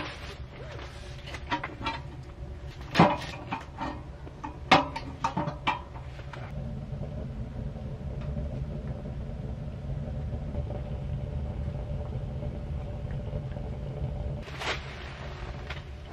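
A run of sharp knocks and clicks of cookware being handled, two of them louder, about three and five seconds in; then a steady low rumble takes over.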